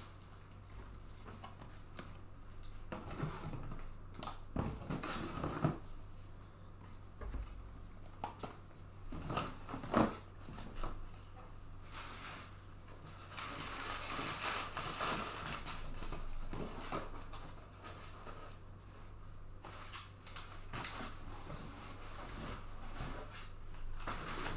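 Scattered rustling, crinkling and light clicks of things being handled by hand, the sharpest knock about ten seconds in, over a steady low hum.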